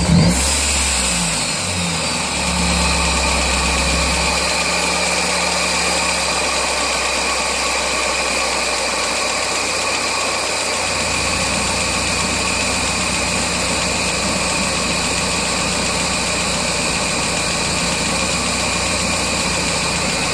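1999 Mazda Miata's 1.8-litre four-cylinder idling on all four cylinders with a light tapping from the top end. The tapping has stayed after the valve lash was set to spec and the oil was changed, and seems loudest above the #4 spark plug. The engine note unsettles briefly at the start, then holds a steady idle.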